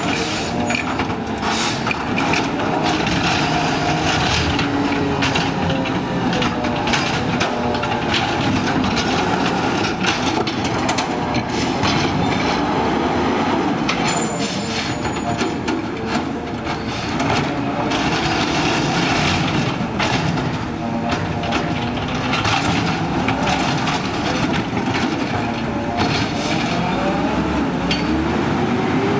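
McNeilus ZR automated side-loader garbage truck with a natural-gas engine, revved hard again and again so its pitch keeps rising and falling, with short hisses and knocks throughout.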